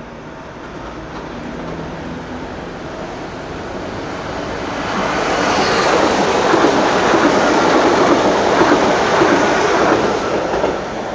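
Pesa Elf (27WEb) electric multiple unit passing by: its wheel and rail rolling noise builds over the first few seconds, stays loud through the middle, and drops off near the end as the last car goes past.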